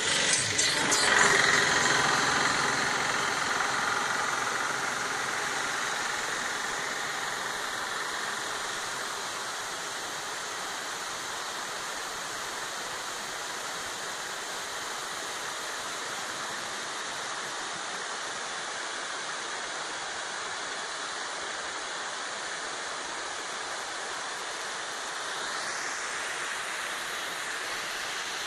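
Several high-speed 2 hp long-arm paddle aerators running on an aquaculture pond: a steady mechanical drone over the rushing splash of churned water. It is loudest in the first few seconds.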